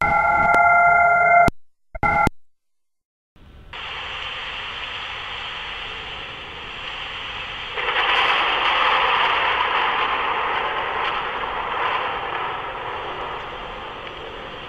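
A held electronic chord of several steady tones that cuts off after about a second and a half, a brief blip, a moment of silence, then a thin radio-like static hiss that comes in a few seconds in and grows louder about halfway through.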